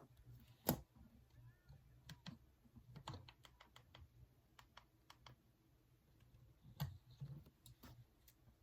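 Wood fire crackling: irregular sharp pops and snaps, two of them much louder, about a second in and near the end.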